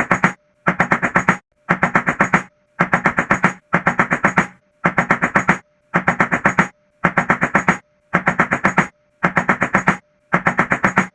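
Rapid knocking on a door, in bursts of six or seven quick knocks that repeat about once a second with short silent gaps, like a loop.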